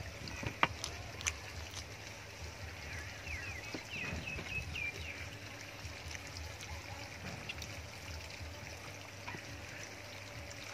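Wet chewing and mouth sounds as cooked beef head meat is torn apart by hand and eaten, with a sharp click just under a second in. A few short high chirps come about three to five seconds in.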